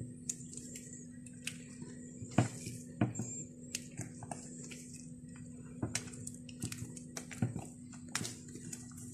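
A utensil clicking and scraping irregularly against a mixing bowl as cake batter is folded in gently by hand, over a steady low hum.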